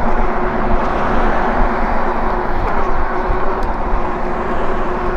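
Steady rush of wind and road noise from an electric bike riding along, with a faint steady hum underneath.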